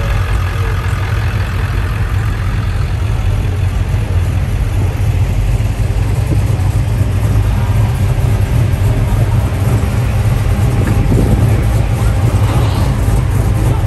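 Car engine running steadily, a continuous low rumble.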